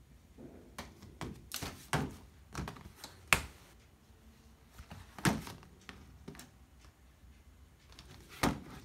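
Irregular knocks and clicks of a plastic cube storage cabinet's panel doors being handled, sharpest about two, three and five seconds in and again near the end.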